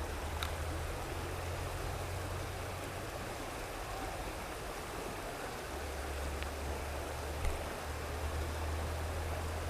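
Steady rushing of flowing river water, with a low rumble underneath.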